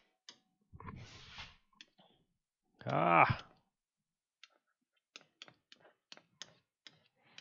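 Light, sharp clicks of a stylus tapping on a pen tablet while writing digital ink, about a dozen in the last three seconds. Before them come a breath and a short hummed voice sound, the loudest thing here.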